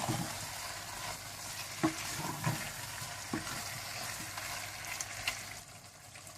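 Minced meat (keema) and potatoes sizzling in oil in a cooking pot while a spoon stirs them, knocking against the pot a few times. The sizzle drops a little near the end.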